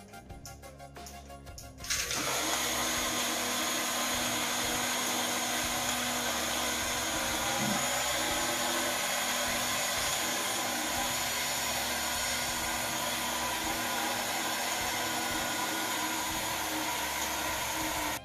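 Portable bottle blender starting up about two seconds in and running steadily, blending lemon juice, then cutting off abruptly at the end.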